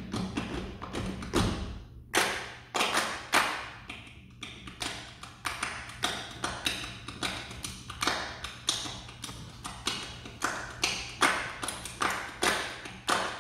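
Percussion quartet playing body percussion, a quick rhythm of sharp hand claps and slaps at about three strokes a second. The strokes pause briefly about two seconds in and again near four seconds.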